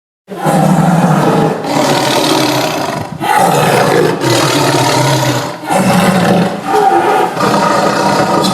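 Tiger roaring in a run of long roars, about five, each a second or so, with brief breaks between them; it starts about a third of a second in.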